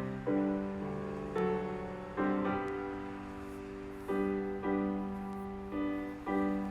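Soft instrumental piano music: chords struck about once a second, each left to ring and fade.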